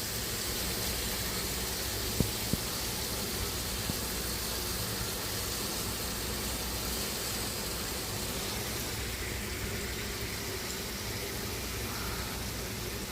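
Electric barbecue grill running, a steady hiss of its blower with a low hum. Two light clicks about two seconds in.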